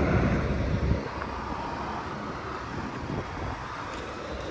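A car driving away, its low engine rumble dropping off about a second in, leaving a steady outdoor hiss with wind on the microphone.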